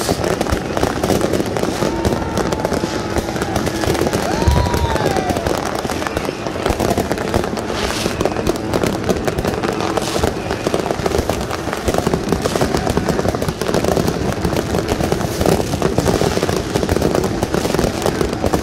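Many fireworks and firecrackers going off at once, a continuous dense crackling and popping with no let-up, and one deeper boom about four and a half seconds in.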